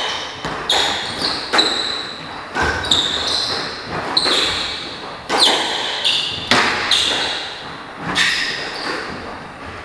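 Squash rally: the ball cracks sharply off the rackets and the walls about once a second, each hit ringing in the enclosed court. High, brief squeaks of court shoes on the wooden floor come between the hits.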